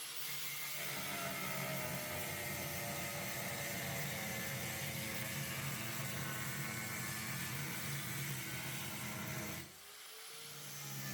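Electric saw running as it cuts 16-gauge sheet steel, a steady motor whir with the noise of the cut. Near the end the sound drops briefly and then builds back up.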